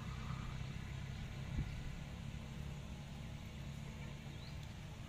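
Steady low hum of an engine running in the background, with one sharp knock about one and a half seconds in.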